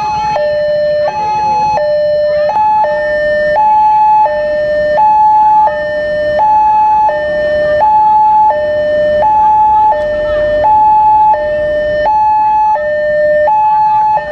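Railway level crossing warning alarm sounding a loud electronic two-tone signal, alternating high and low about every 0.7 s: the crossing is closed and a train is passing.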